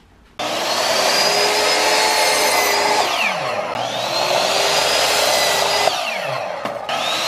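Electric miter saw cutting a pine board: its motor whine rises as it spins up about half a second in, winds down, starts again around four seconds, winds down again, and starts a third time near the end.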